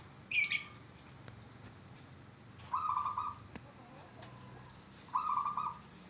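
Caged zebra dove (perkutut) cooing: a short sharp high note just after the start, then two rhythmic, stuttering coos about three and five seconds in, repeating about every two and a half seconds.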